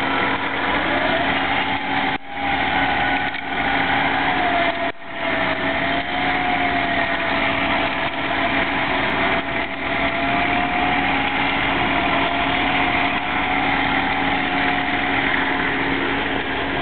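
A car engine running steadily, with a steady whine that wavers a little in pitch; the sound drops out briefly twice, about two and five seconds in.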